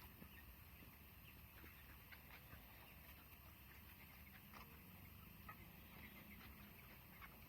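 Faint, scattered peeping and cheeping of young broiler chickens, over a low steady hum.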